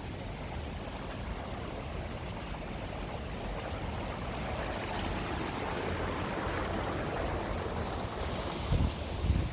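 Steady rush of a waterfall, a continuous hiss of falling water that swells slightly midway. Two brief low bumps sound near the end.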